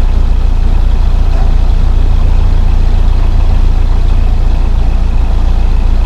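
Narrowboat's diesel engine running steadily at cruising speed: a constant low drone.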